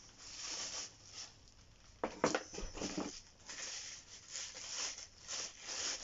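Packaging rustling and crinkling as a jigsaw is lifted out of its box and unwrapped, with a sharper knock and scrape about two seconds in.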